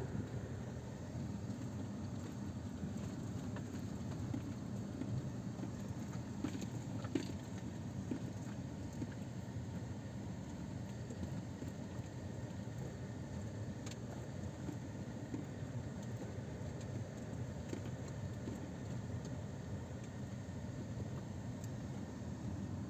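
Steady low rumble of a car driving slowly over a dirt track, heard from inside the cabin: engine and tyre noise, with a few faint ticks and rattles.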